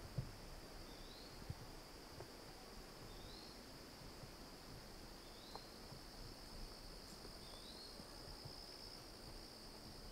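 Faint, steady high-pitched insect trill of a late-summer forest, with a short rising chirp about every two seconds and a couple of soft low thumps near the start.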